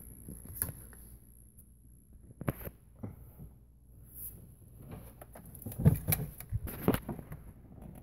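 Scattered light clicks and knocks of hands handling parts and the camera in a truck's engine bay, with a burst of them about six seconds in.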